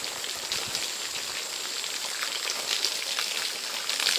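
Water falling from a split-bamboo spout and splashing over a person's head and body onto the ground: a steady spattering hiss with many small splashes.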